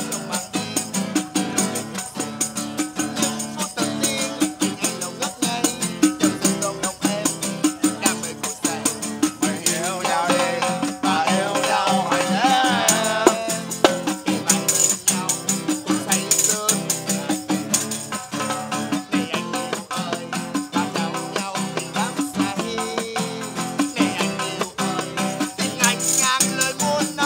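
Live acoustic music: a tambourine shaken and struck on a steady beat over strummed guitar chords, with a man singing along, his voice strongest in the middle.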